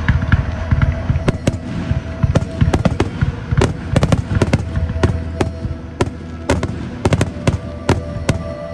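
Aerial fireworks going off in quick succession: dozens of sharp cracks and booms over a continuous low rumble.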